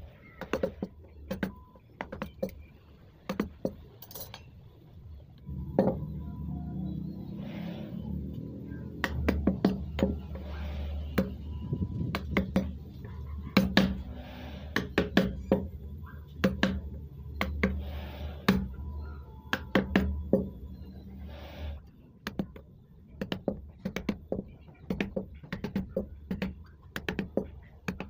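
Carving chisel cutting into teak: repeated sharp knocks several times a second, with short scraping cuts. A low steady hum runs underneath from about six seconds in until past the middle.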